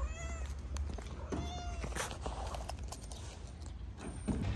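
Cat meowing twice: a short meow that rises and falls right at the start, and a second, steadier meow about a second and a half in.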